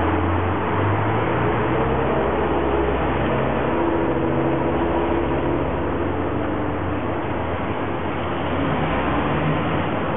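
Steady motor-vehicle noise: a low engine hum under an even traffic hiss.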